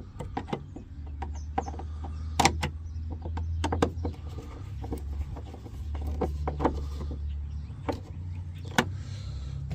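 Scattered clicks and knocks of a hand screwdriver turning in the door panel's Phillips screws, over a low steady hum that comes and goes.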